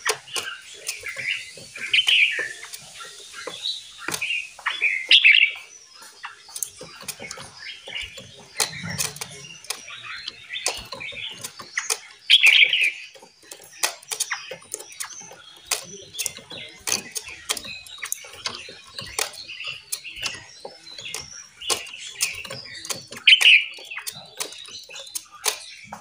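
Several caged songbirds in an aviary chirping and calling in short, overlapping phrases, three of them louder, over a steady patter of many short sharp clicks.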